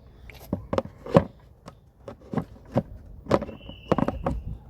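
Irregular plastic knocks and clicks as a Greenstalk planter tier is handled and fitted onto the one below, the loudest about a second in. A thin steady tone sounds for about a second in the second half.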